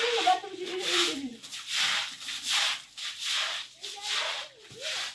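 Straw broom sweeping a wet concrete floor: repeated swishing strokes, a little over one a second.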